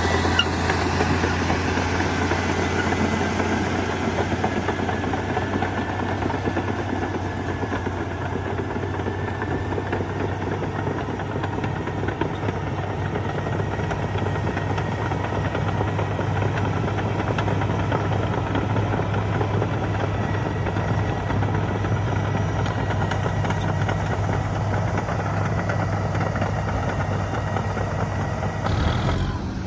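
Heavy diesel earthmoving machinery running steadily, a low engine hum from the excavator and dump trucks at work, which changes abruptly near the end.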